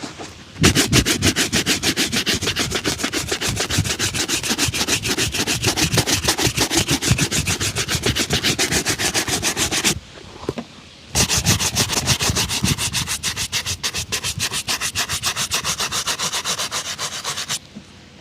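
Brisk back-and-forth buffing strokes on a polished leather shoe, rapid and even, in two long runs with a short break about halfway through.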